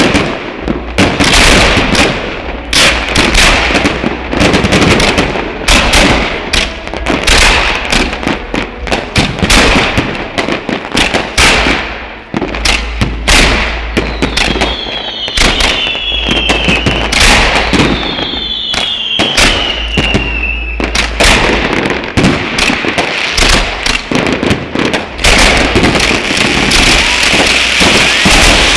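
Fireworks going off in quick succession: a dense run of bangs and crackles, with two falling whistles about halfway through and a steady crackle near the end.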